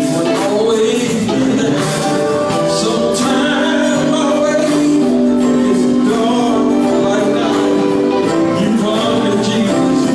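Gospel group singing, voices holding long notes over instrumental backing with frequent percussion hits.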